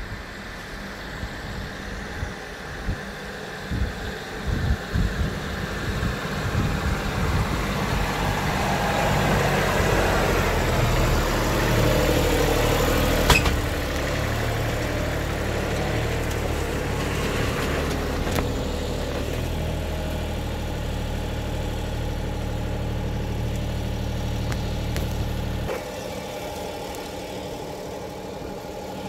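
Compact tractor engine running. It grows louder over the first dozen seconds, then runs steadily and becomes quieter near the end, with one sharp click about thirteen seconds in.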